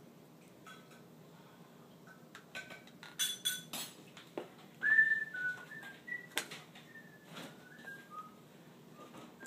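A plastic spoon clicking and scraping against a plastic yogurt cup in a small child's hands. Short, high whistle-like notes sound in between, the loudest about five seconds in.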